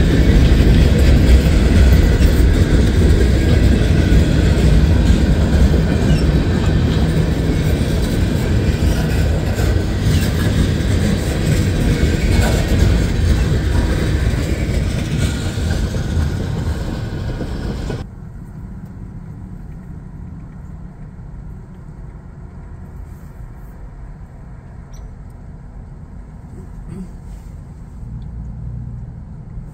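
Freight train rolling past close by: steady rumble and rail noise of the railcars, loud at first and slowly fading. About 18 seconds in it drops off suddenly, leaving only a quiet low rumble.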